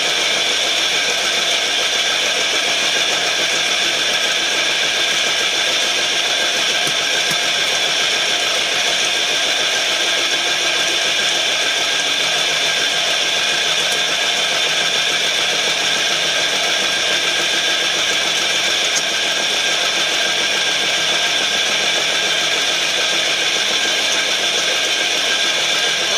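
Charcoal briquette extruder driven by a 5 hp electric motor, running steadily under load as it pushes out a briquette log, with an even, high-pitched whine.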